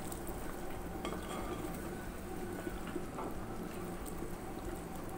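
Wooden spatula stirring a thick chicken curry in a metal pot: wet sloshing of the gravy with light scrapes and taps against the pot.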